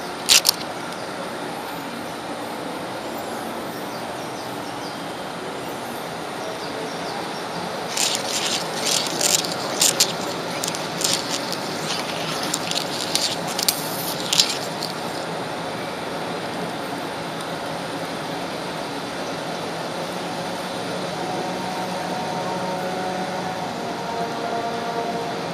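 Model train running along its track: a steady rolling hiss, with a run of sharp clicks for several seconds in the middle as the wheels pass over the track.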